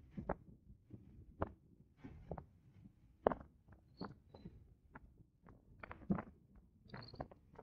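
Irregular soft knocks and taps, one to three a second, over a faint low rumble, picked up by a camera riding on a car on the move; the loudest knock comes about three seconds in.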